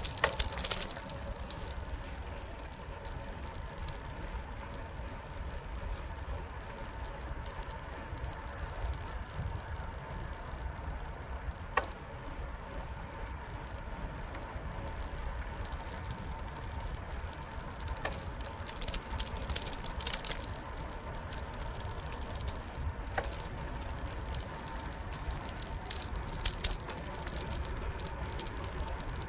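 Bicycle riding along a paved path: a steady low rumble of tyres on the surface and air rushing past the handlebar microphone, with a faint steady tone throughout. A few sharp clicks from the bike rattling over bumps are scattered through the ride.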